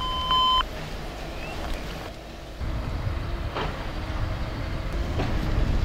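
A short electronic beep right at the start, then a vehicle engine idling under a low rumble, with a few sharp clicks of handling.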